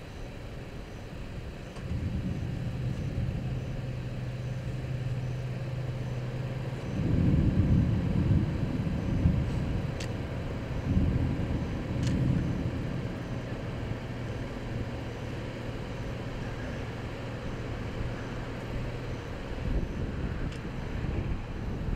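A motor vehicle engine running with a steady low hum, with louder low rumbles about seven and eleven seconds in.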